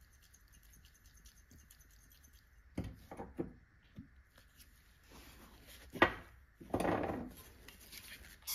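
Glass jam jar handled on a workbench: a few short scrapes and clinks about three seconds in, a sharp knock about six seconds in, then a brief rushing noise.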